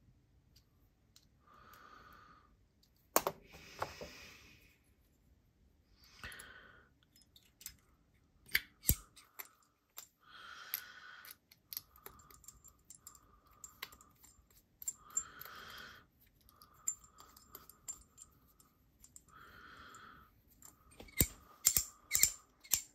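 Hearthstone V2 ratchet haptic coin being turned in the fingers: sharp ratchet clicks, with a squeak about a second long recurring every few turns. The owner wonders whether the squeaking means he put the coin together wrong.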